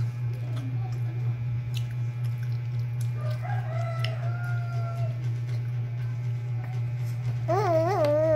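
A rooster crowing twice, a fainter crow about three seconds in and a louder one near the end with a wavering start and a long held final note, over a steady low hum.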